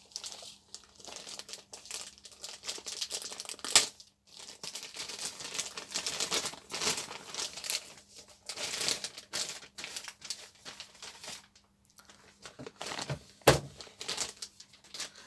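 Clear plastic wrapper crinkling and rustling as a car radio is worked out of it, with two sharper cracks, one about four seconds in and one near the end.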